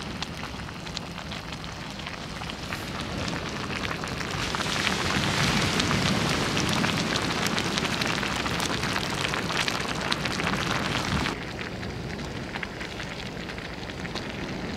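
Pasta sizzling and crackling in hot oil in a frying pan. It grows louder about four seconds in and drops back suddenly about eleven seconds in.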